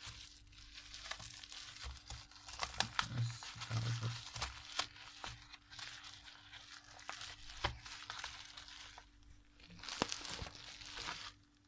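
Plastic wrapping film on a small cardboard box crinkling and tearing as it is handled and pulled off, with scattered sharp clicks and taps.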